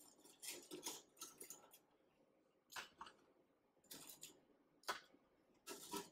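Faint clicks and scrapes of metal tongs against a stainless wire-mesh deep-fryer basket as crispy fried shrimp are picked out one by one, in a series of short, separate clatters about every second.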